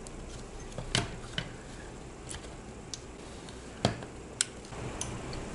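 Scattered clicks and light knocks of computer parts being handled inside a small ITX PC case, around the cables and the graphics card. There are about seven sharp clicks, the loudest about one second in and twice near four seconds in.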